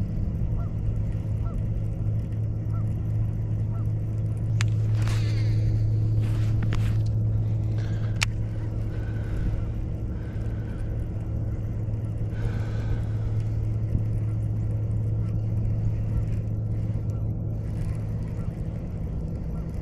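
Faint honking of distant geese, a short call repeated over the first few seconds and again around ten seconds in, over a steady low hum. A few sharp clicks come near the middle.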